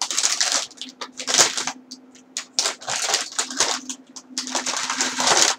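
Shiny anti-static bag crinkling and rustling in irregular bursts as it is handled.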